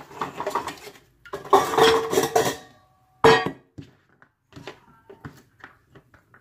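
Kitchenware clattering: utensils clinking and a stainless steel bowl clanging down with a short metallic ring, followed by a few light knocks on the counter and cutting board.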